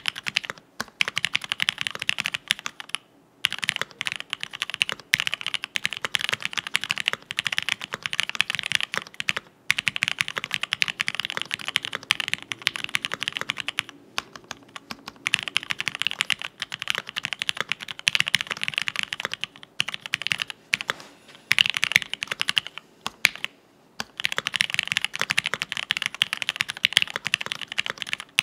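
Typing on a TX65 PC custom mechanical keyboard with lubed Gateron Cream linear switches, an FR4 plate and PBT keycaps: long runs of quick keystrokes with a few short pauses.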